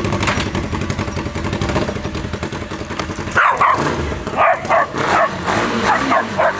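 1992 Honda CBR600 inline-four motorcycle engine idling through motorcycle mufflers, louder than normal from a header pipe leaking where it has lost a nut. From about halfway in, a dog barks several times in short bursts over the engine.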